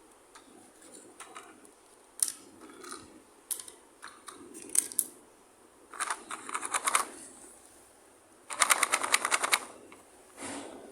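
Small plastic toy kitchen pieces handled close to the microphone: scattered clicks and taps, then two bursts of fast rattling clicks, about six seconds in and, louder, near nine seconds.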